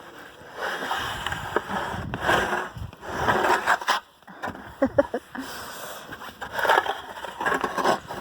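A snow shovel scraping and pushing snow in several strokes, with a few short knocks between them.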